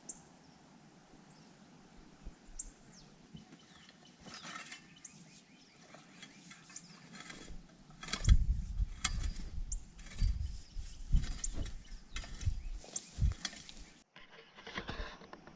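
A few faint, short bird chirps, then from about halfway in a run of irregular scrapes and thumps as a rake is dragged through freshly tilled soil to line out planting rows. The sound stops abruptly near the end.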